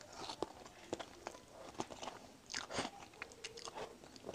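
Close-miked mouth sounds of eating egg noodles: rapid wet chewing clicks and smacks, with a couple of longer noisy slurps of noodles.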